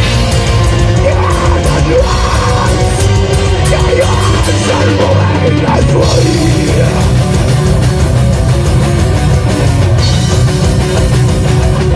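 A black metal band playing a song at rehearsal, with loud distorted guitars over bass and drums. About five seconds in the lowest end briefly drops out before the full band comes back.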